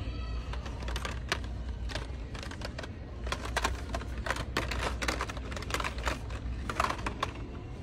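Carded Matchbox die-cast cars in plastic blister packs clacking and rattling against each other and the metal peg hook as they are flipped through, in a run of irregular clicks that is busiest in the second half.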